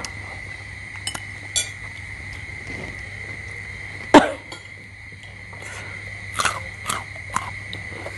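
Table eating sounds: spoons clicking and clinking against balut eggshells and dishes, with one loud, sharp sound about four seconds in and a run of small clicks near the end, over a steady high-pitched hum.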